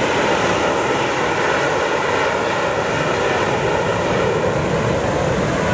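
A twin-engine jet with rear-mounted engines flying past overhead, its jet engines giving a steady, even noise that does not rise or fall.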